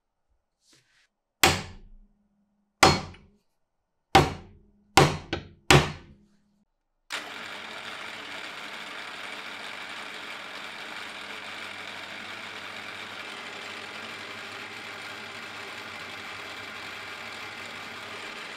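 Five sharp metallic knocks in the first six seconds, each dying away quickly, some with a brief low ring. About seven seconds in, a drilling machine starts and runs steadily as a twist drill cuts into the steel body of an old adjustable monkey wrench.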